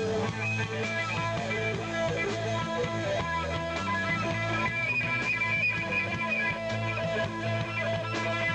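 Live rock band playing: electric guitars holding sustained notes over a drum kit keeping a steady beat.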